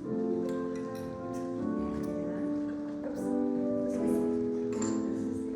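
Slow instrumental music of sustained chords that change about once a second.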